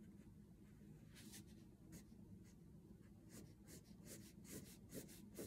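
Faint scratching of a brown oil pastel stroked on paper. The strokes are few at first, then come quickly and close together from a little past halfway.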